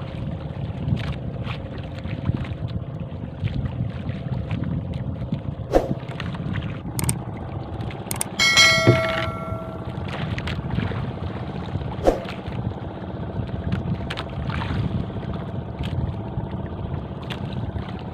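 Small boat on the water: a steady low rumble of wind and water with occasional knocks. A brief bell-like ringing tone sounds about eight and a half seconds in.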